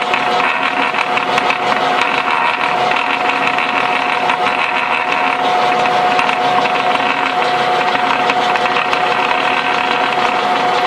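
Hanomag Kommissbrot gearbox, open to view, turning over on a test run after repair: its gears mesh with one steady whine over a constant rattle.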